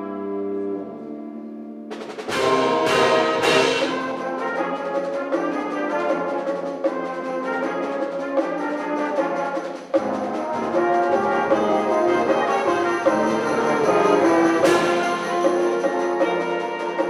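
High school wind ensemble playing: held brass and woodwind chords, then three sharp percussion hits a little over two seconds in, bringing in the full band, with another hit near the end.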